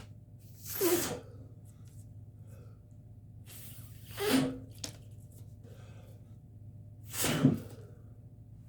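A person making three short, forceful bursts of breath through nose and mouth, about three seconds apart, with a steady low hum underneath.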